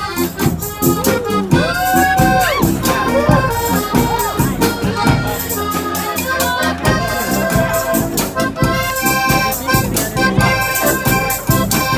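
Live street band music: a festival marching band playing a tune, with sustained melody notes, some bending in pitch, over a steady percussion beat.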